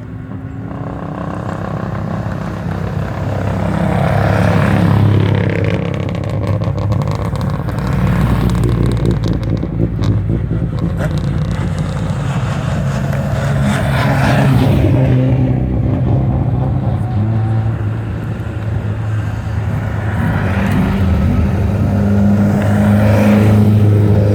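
Hill-climb competition cars driving past one after another on the way back down the course, each engine swelling as it nears and fading as it goes.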